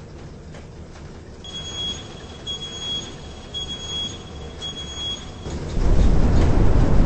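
Four short, high-pitched electronic alarm beeps, about one a second, over a steady low rumble. Near the end the rumble turns much louder.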